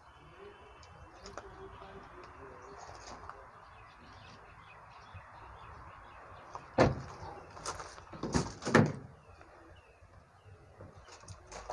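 A 2011 Toyota Corolla's car door shutting with a sudden thump, followed within a couple of seconds by several loud knocks and rattles of a door being handled. Faint bird chirps behind.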